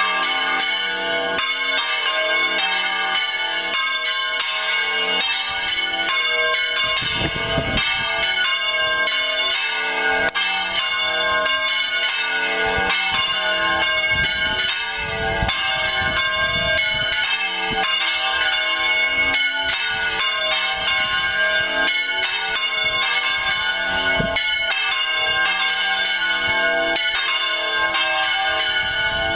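Lluc Monastery's church bells ringing continuously, many bell tones overlapping in a steady peal.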